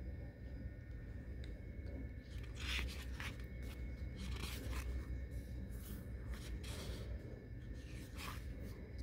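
Paper pages of a thick sticker book being turned by hand: a series of short, soft swishes of paper sliding against paper, starting about two and a half seconds in.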